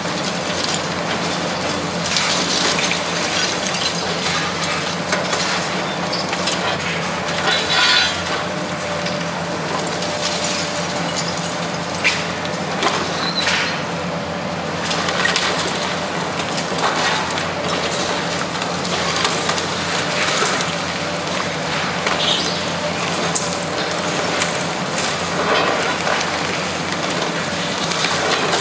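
Demolition excavator's hydraulic crusher jaws chewing through reinforced-concrete balcony slabs: irregular crunching and cracking of concrete and rubble falling, over the steady drone of the excavator's diesel engine. The loudest crunches come about eight seconds in and again around twelve to thirteen seconds.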